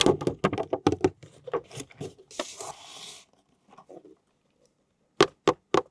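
Hands handling toy packaging: a quick run of tapping and scratching on the box, a short rustle of plastic or cardboard, then three sharp clicks near the end.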